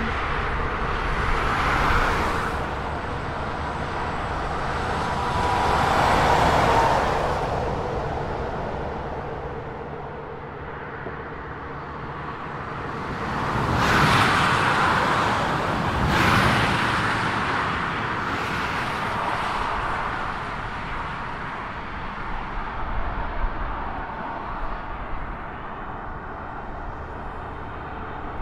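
Street traffic: several cars pass one after another, each a swell of tyre and engine noise that rises and fades over a steady traffic hum.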